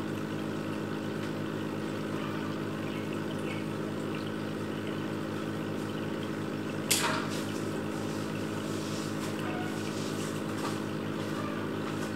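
Aquarium water pump humming steadily with water trickling, and one sharp click about seven seconds in.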